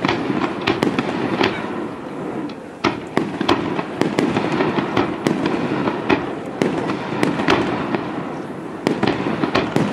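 Japanese aerial firework shells bursting in quick succession: sharp bangs at uneven spacing, roughly two a second, over a steady background noise.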